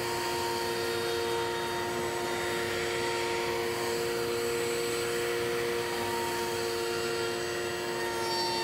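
Table-mounted router running at a steady high-pitched whine as a wooden drawer is fed by hand around a round-over bit, rounding over its edge.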